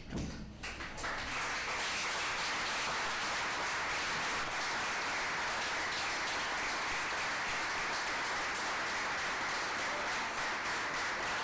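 Small audience applauding steadily, the clapping building up about a second in.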